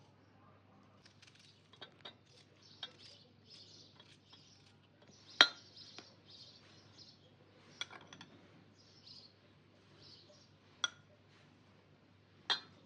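Utensils clinking against dishes: about eight separate sharp clinks, the loudest about five and a half seconds in. Faint bird chirps sound between them.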